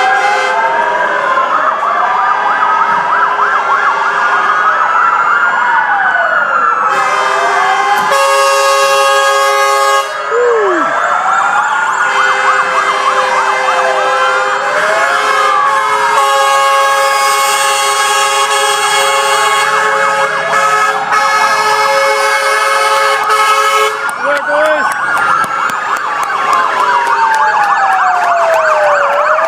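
Several fire truck sirens wailing at once, loud, their pitches rising and falling out of step with each other. Steady horn blasts sound over them from about a quarter of the way in until a few seconds before the end.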